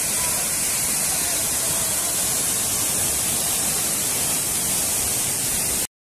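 Waterfall in heavy rainy-season flow, a steady rushing hiss of falling water and spray heard close to the cascade. It cuts off abruptly just before the end.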